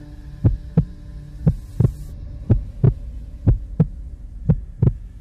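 Heartbeat sound effect: pairs of deep thumps, lub-dub, about once a second, over a low steady hum.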